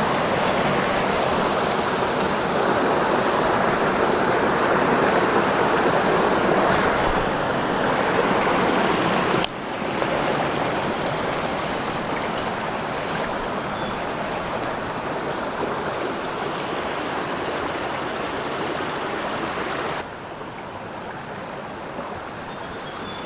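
Trout stream running high, a steady rush of water; the level drops suddenly twice, about ten seconds in and again near the end.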